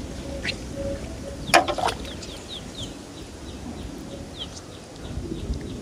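Low rumble of distant thunder and wind, with a bird chirping in a quick run of short, high, falling notes in the middle and a couple of sharp clicks about one and a half seconds in.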